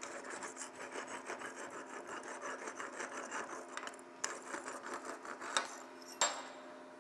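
Steel wire brush scrubbed back and forth over a flux-cored weld bead to clear off the slag, fast scraping strokes about five a second. The scrubbing breaks off briefly about four seconds in, and there are two sharp knocks near the end.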